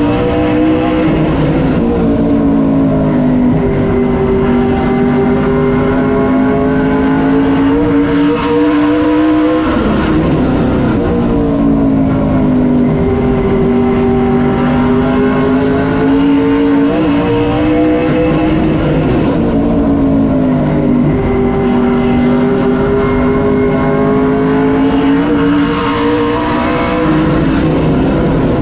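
Sportsman late model race car's V8 engine at racing speed, heard from inside the cockpit. Its pitch drops as the driver lifts into each corner and climbs again down each straight, about every nine seconds.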